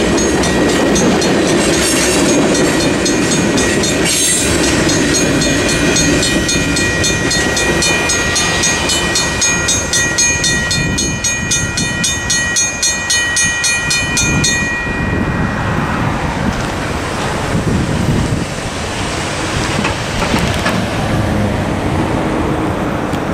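A Safetran mechanical crossing bell rings with rapid, evenly repeated strikes over the rumble and wheel clatter of loaded freight flatcars rolling past. The train noise fades as the last car clears, and about two-thirds of the way through the bell stops abruptly. After that, cars rumble across the tracks.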